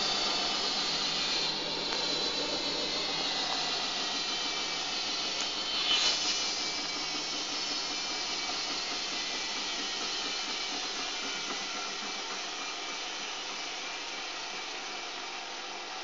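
Miele front-loading washing machine spinning a load of towels and a bath mat, its motor whine falling slowly in pitch and the noise easing off as the drum slows: an intermediate spin before the final one. A brief knock about six seconds in.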